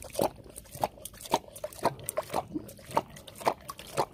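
A tiger lapping water from a metal bowl: wet splashing laps with its tongue, about two a second, in a steady rhythm.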